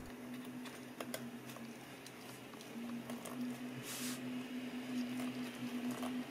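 Faint scratching and small clicks of a thread being sawn under a MacBook Pro Retina battery cell to cut through its adhesive, with a short rasp about four seconds in. A low steady hum runs underneath.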